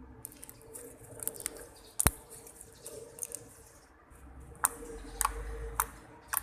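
Hands squeezing and stretching sticky homemade glue slime, giving irregular wet clicks and pops, with one sharp snap about two seconds in.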